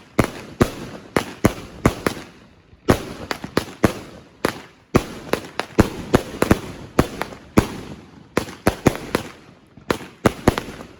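Fireworks going off: a rapid series of sharp bangs in clusters of several at a time, with brief pauses between clusters.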